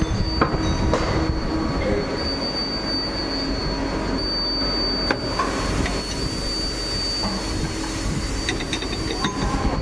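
CNC machine running, a constant mechanical noise with a steady high whine held throughout.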